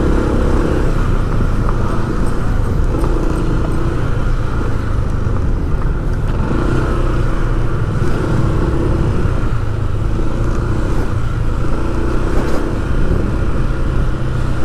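Engine of a moving road vehicle running steadily, with road noise.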